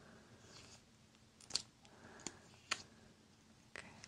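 A handful of sharp, short plastic clicks and taps from a clear eyebrow-product tube and its spoolie wand being handled close to the microphone, with faint soft rustling between them.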